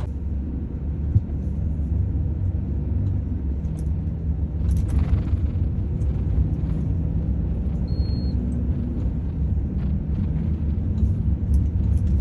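Heavy truck cab interior while driving: a steady low engine and road rumble from the Volvo lorry. A short high beep sounds about two-thirds of the way through.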